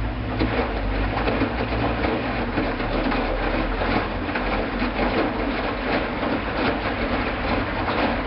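Hoover front-loading washing machine in its first rinse: a steady rushing and sloshing with irregular clicks and clatter. A low hum drops away as it begins.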